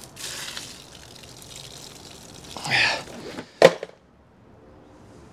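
Water pouring out of a tipped plastic bucket and splashing onto the ground, with a sharp knock about three and a half seconds in.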